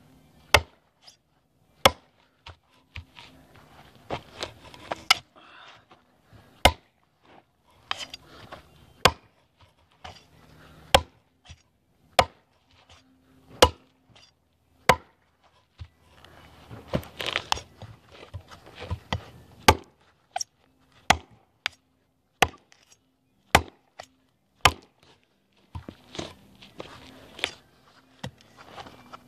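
Heavy chopping knife with a quarter-inch-thick 1095 carbon steel blade (TOPS El Chete) chopping into a log: sharp strikes about once a second, with a rougher, busier run of hits about halfway through.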